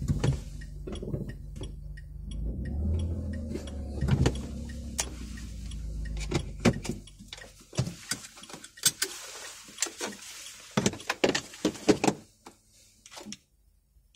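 Inside the cabin of a Smart ForTwo 453: a low steady engine hum that dies away about six and a half seconds in, followed by a run of sharp clicks and knocks.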